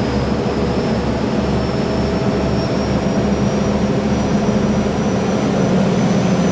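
Twin 5.5-litre mechanical turbo diesel boat engines running, with a loud high turbo whine slowly rising in pitch over a steady low throb.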